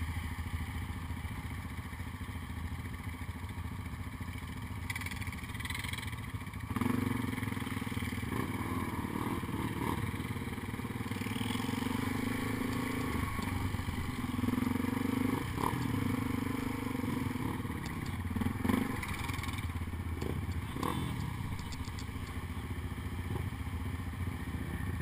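ATV engine idling, then revving up about seven seconds in as the quad rides off. The engine rises and falls with the throttle, with a few knocks and rattles from the machine over the ground.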